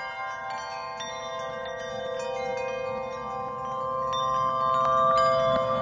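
Bright chimes struck again and again over a cluster of steady ringing tones, growing louder after about four seconds.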